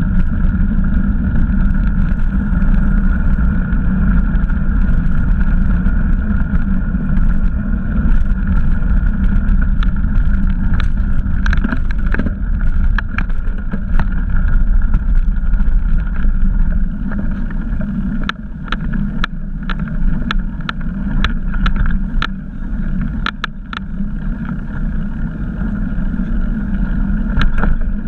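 Mountain bike ridden along a trail: a steady low rumble of tyres and wind on the microphone, with a run of sharp clicks and rattles over bumps through the middle and later part.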